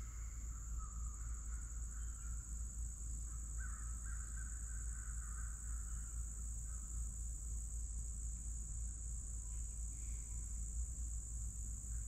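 Rural summer ambience: a steady high-pitched insect drone over a low rumble, with faint animal calls a few seconds in.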